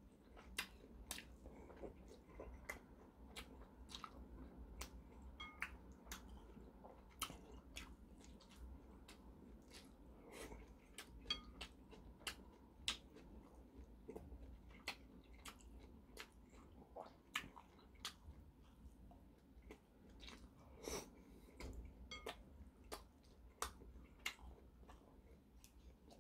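A man chewing food close to the microphone, with many short, irregular clicks of the mouth, about one or two a second.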